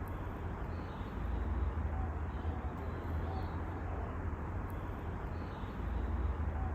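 Steady low rumble with faint, short bird chirps every second or so.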